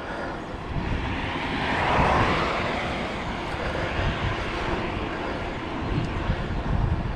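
A passing vehicle, its noise swelling to a peak about two seconds in and then slowly fading, over a low, irregular wind rumble on a chest-mounted action camera's microphone while cycling.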